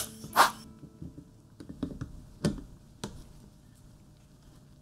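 Handling noise from a vintage twin-lens reflex camera in gloved hands. A brief loud rustle comes first, then a few separate sharp clicks about a second apart. Background music stops at the start.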